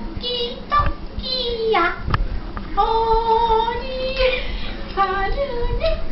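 A high voice singing a slow melody without clear words, in long held notes with gliding falls and rises in pitch.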